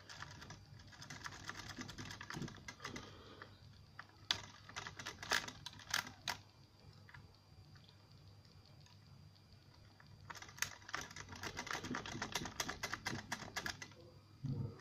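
Octo rake being worked back and forth in an Ingersoll rim cylinder lock under tension: a rapid rattle of small clicks as it scrapes across the pins, in two spells with a quieter pause between, and a few sharper clicks about four to six seconds in.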